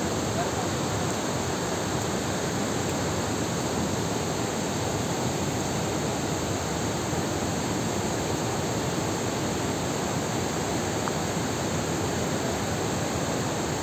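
Large waterfall: a steady, unbroken rush of falling water and spray.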